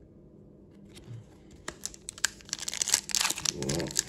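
Foil wrapper of a Pokémon Evolving Skies booster pack being torn open by hand. It starts with a few sharp crinkles about a second and a half in, then builds into dense crinkling and tearing of the foil.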